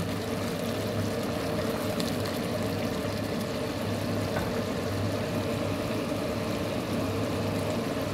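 Pot of rice and broad beans boiling, its last liquid bubbling as it cooks down toward dry, over a steady low hum.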